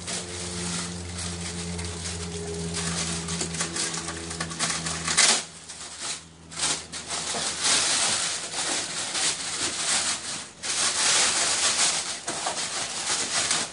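Large clear plastic bag crinkling and rustling as it is worked loose and pulled down off a 3D printer, in long stretches with short breaks about six seconds and ten and a half seconds in.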